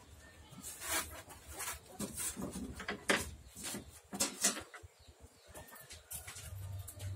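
Scattered light knocks and clicks from handling work in a wooden tub: a metal tape measure being pulled out and styrofoam sheets being moved.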